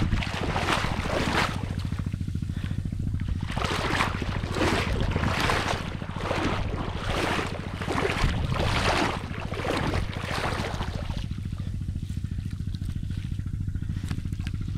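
Water sloshing and splashing in short, irregular surges as a person wades through a pond paying out a gill net, over a steady low rumble; the splashing stops about eleven seconds in.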